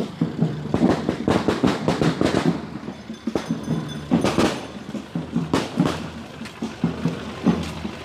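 A string of firecrackers going off in rapid, irregular runs of sharp cracks and bangs, densest about a second in and again near the middle.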